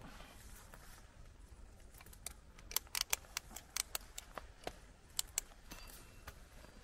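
Light clicks and clinks of an arborist's metal climbing hardware (carabiners and lanyard adjuster) being handled while rigging a rope at the foot of a tree, a quick run of sharp clicks through the middle few seconds over faint outdoor hiss.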